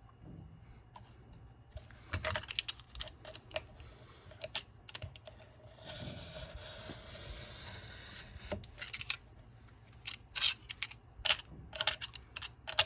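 Paper and tools handled on a tabletop: an irregular run of crisp taps and paper rustles, with a longer scraping rustle in the middle.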